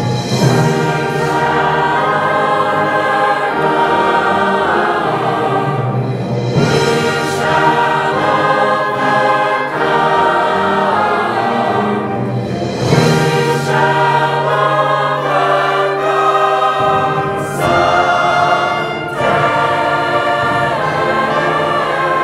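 Recorded music: a choir singing with instrumental accompaniment.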